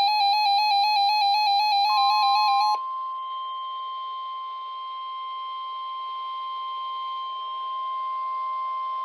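An electronic alert tone warbling rapidly between two pitches cuts off about three seconds in. A steady single-pitch tone, the NOAA Weather Radio 1050 Hz warning alarm tone, starts about two seconds in and holds to the end over a faint hiss, sounded as a weekly test of the alarm.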